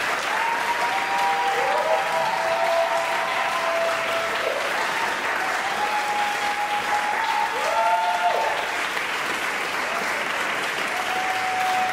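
Concert audience applauding steadily, with several drawn-out shouts of cheering rising above the clapping.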